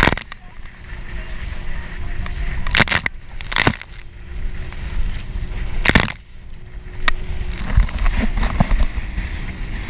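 Banana boat towed fast over open water: wind buffeting the camera microphone and water rushing past, with several sharp splashes of spray hitting the camera.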